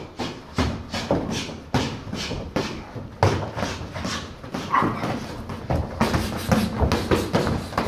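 Boxing sparring: gloved punches landing and feet on the ring canvas, giving irregular sharp thuds about twice a second, with the boxers' breathing between them.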